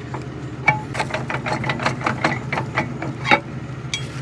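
A quick run of about a dozen sharp metal knocks, like hammer blows on steel, the first and last loudest, over a steady engine hum.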